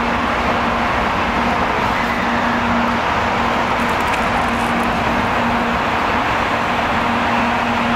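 Steady vehicle noise, with a low hum that keeps cutting in and out.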